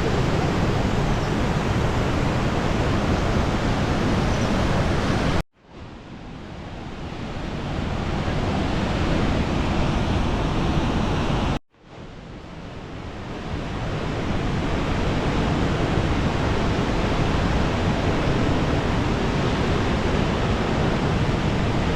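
Steady loud rushing of a waterfall. It cuts out abruptly twice and swells back up over a few seconds each time.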